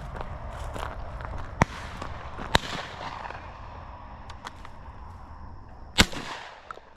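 Three shotgun shots: two about a second apart, then a louder one a few seconds later with a short echo.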